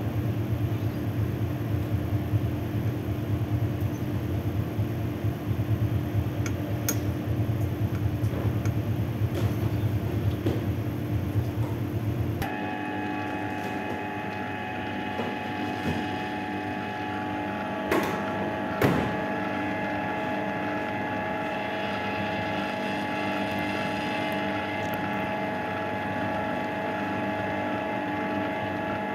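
Electric stand mixer running with its dough hook, kneading stiff rye-caraway sourdough in a steel bowl, with a steady low pulsing hum. About twelve seconds in, the hum gives way to a higher steady whine, and two sharp knocks come a second apart later on.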